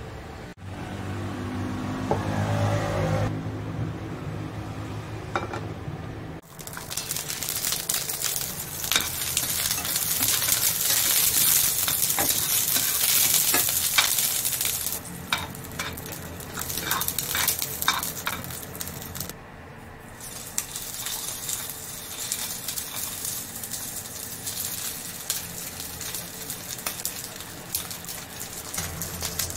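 Food frying in hot oil in a pan: a loud sizzle sets in about six seconds in and eases off after about fifteen seconds. A run of sharp clicks and taps from a utensil against the pan comes in the middle.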